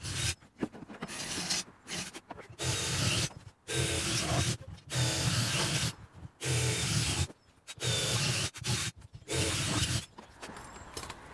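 Cordless drill running in about nine short bursts of roughly a second each, boring holes through an aluminum frame. It stops about ten seconds in.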